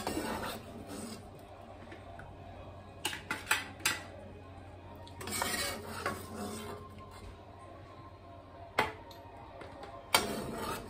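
Slotted metal spoon clinking and scraping against a pot as boiled chestnuts are scooped out of the water, with a quick run of sharp clinks about three seconds in and louder single knocks near the end.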